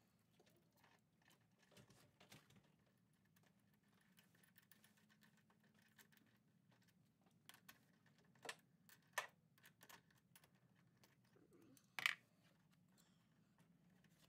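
Faint, scattered clicks and taps of hand tools and metal hardware being handled while new battery cable terminals are fitted, with a few sharper clicks in the second half, the loudest near the end.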